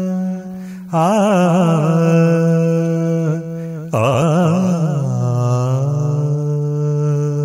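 A man's voice singing a wordless melodic phrase with heavy vibrato over a sustained backing drone. It breaks off briefly around three seconds in, comes back, then glides down and settles into a long held low note.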